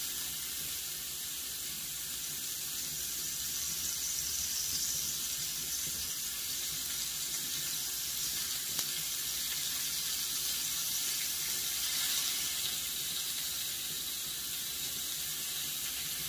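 Thinly sliced beef brisket sizzling steadily on a hot grill pan.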